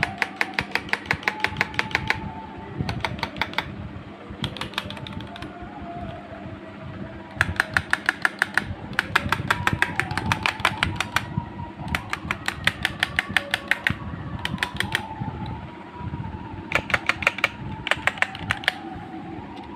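Zenronics K24 keyboard keys typed in rapid runs of clicks, about eight a second, in bursts of a second or two with short pauses between.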